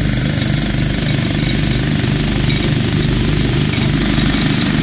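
Small gasoline engine running steadily at a constant speed, with a fast, even beat.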